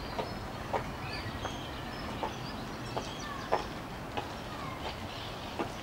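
High-heeled shoes clicking on a paved path, one sharp step about every three quarters of a second, the loudest about halfway through as the walker comes close. Birds chirp and call in the background.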